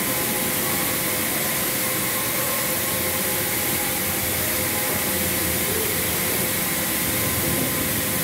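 Steady rushing hiss of machinery with a low hum and a few faint steady tones, the ambient roar of the restaurant's themed engine-furnace roaster display.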